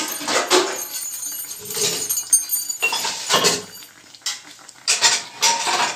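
Metal kitchen utensils and pots clinking and clattering in short knocks and scrapes, repeated irregularly.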